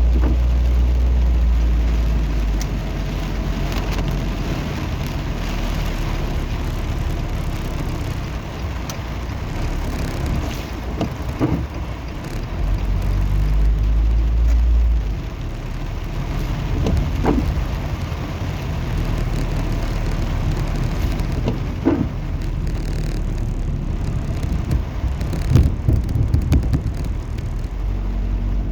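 Rain falling in high wind, with the wind buffeting the microphone in low gusts, strongest at the start and again about halfway through, and a few sharp ticks.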